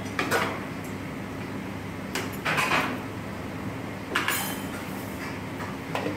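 Chef's knife scraping chopped vegetables across a cutting board and sliding them onto a metal plate: a few separate scrapes a second or two apart, over a steady low kitchen hum.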